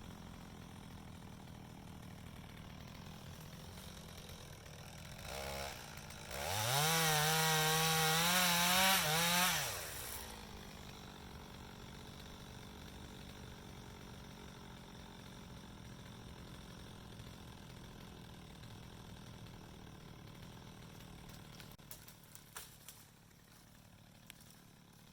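Chainsaw idling, blipped briefly about five seconds in, then revved up and held at high speed for about four seconds before dropping back to idle. A few sharp clicks near the end.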